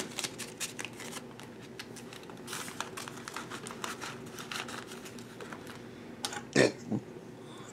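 Paper banknotes rustling as they are counted by hand and slid into a clear plastic zipper sleeve of a cash binder, with soft crinkling of the plastic. Near the end, a short sound from the throat.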